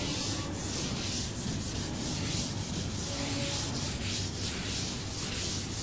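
Chalkboard eraser wiping chalk writing off a chalkboard in repeated scrubbing strokes.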